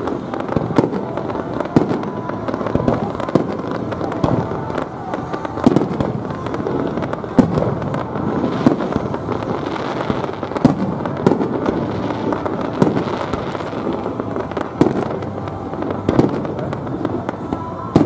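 Aerial firework shells bursting in a continuous barrage: many sharp bangs in quick, irregular succession, some noticeably louder than the rest.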